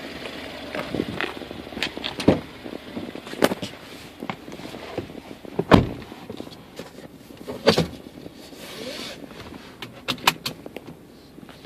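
Footsteps crunching on ice and snow, then a car door of a 2014 Subaru Forester shutting about six seconds in, followed by scattered clicks and knocks inside the car.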